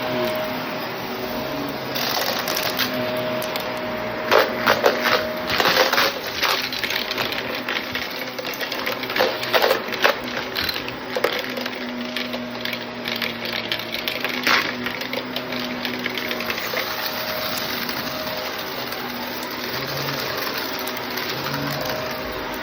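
Shark vacuum cleaner running with a steady motor hum, with bursts of sharp rattling and clicking as bits of debris are sucked up through it.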